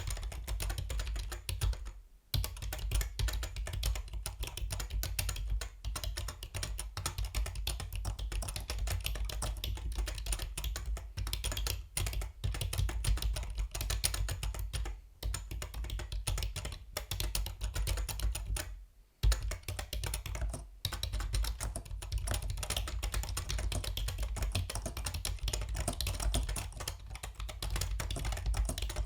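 Yunzii B307 mechanical keyboard being typed on steadily: a fast, continuous stream of key clicks, with brief pauses about two seconds in and again about two-thirds of the way through.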